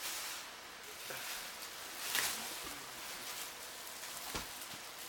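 Rustling, crackling and scraping of model-kit boxes and their packaging being handled, with a dull knock about four seconds in as something is set down.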